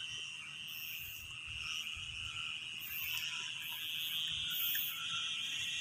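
Chorus of frogs and insects calling from the ponds and paddies: a steady high trill, with shrill high-pitched bursts coming and going every second or so. Underneath is a low irregular rumble.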